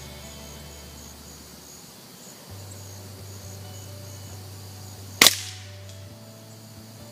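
A single suppressed shot from a Stag Arms AR-15 in 5.56 firing Remington subsonic ammunition through an ACW suppressor: one short, sharp report about five seconds in that dies away within a second.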